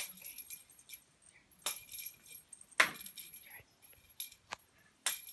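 A cat toy rattling and clacking in a handful of short, sharp knocks as a kitten plays with it; the loudest knock comes about three seconds in.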